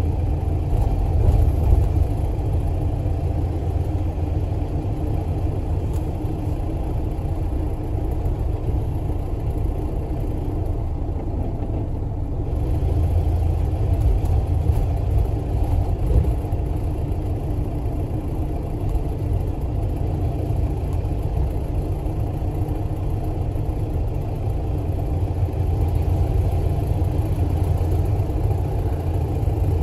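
Community bus engine and road noise heard from inside the passenger cabin: a steady low rumble.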